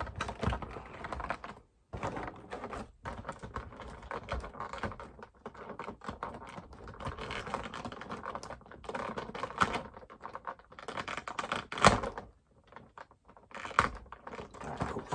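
Clear plastic blister packaging being cut and pulled apart by hand: a dense run of crackling and clicking plastic, with one sharp snap about twelve seconds in.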